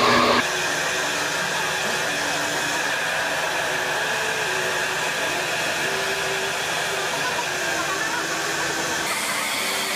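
Handheld hair dryer blowing steadily as wet hair is blow-dried. The noise steps down to a quieter level about half a second in.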